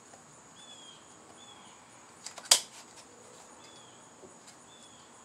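A single sharp plastic click about halfway through, with a couple of lighter ticks just before it, as the RC radio transmitter is handled. Behind it, a quiet background with a steady high whine and a few faint short chirps.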